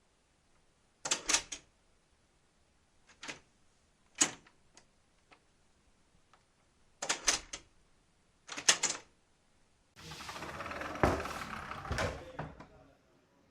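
Sharp clicks and clacks of a door handle and latch, in about five separate bursts, followed near the end by a few seconds of continuous rattling noise with a few knocks.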